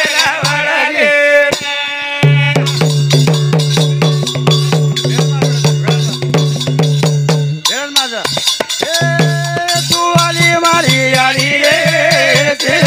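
Banjara devotional song (bhajan): male voices singing to a fast, even rattling percussion beat, with a steady low note held for several seconds in the middle before the singing resumes.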